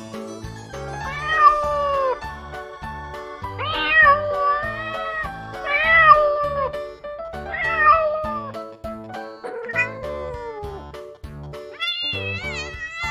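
Domestic cat meowing, about six meows roughly two seconds apart, each rising and then falling in pitch, over light background keyboard music.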